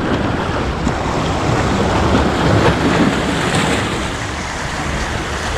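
Strong wind blowing against the microphone mixed with waves washing at the shore, a steady loud rushing noise.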